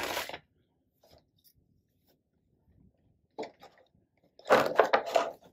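Plastic toy packaging crinkling as it is handled: a brief burst at the start, a short one about three and a half seconds in, and a louder, longer crinkling near the end.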